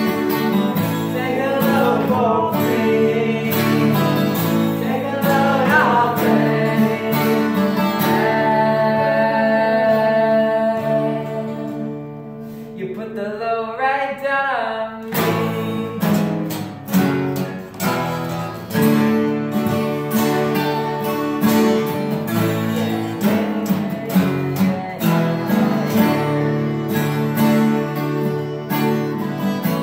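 Three acoustic guitars, one of them a twelve-string, strummed together in a chord-based song. About halfway through, the strumming thins out under a single sliding line, then hard strums come back in.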